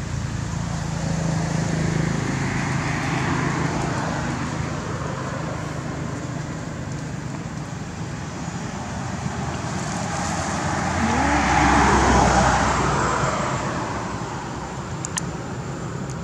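Road traffic noise: passing vehicles swell and fade, a weaker pass early on and a louder one with a low rumble about three quarters of the way through.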